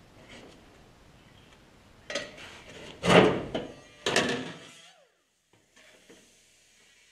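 Sheet-metal dashboard panel clanking and rattling against a car's bare metal body as it is pushed into place, in three bursts about a second apart, the middle one the loudest. The sound stops abruptly just before 5 seconds in.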